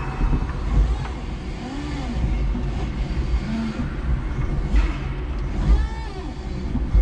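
Electric forklift truck driving with a load on its forks: a steady low rumble from the drive and the wheels on the floor, with a few brief rising-and-falling whines and a short clatter about five seconds in.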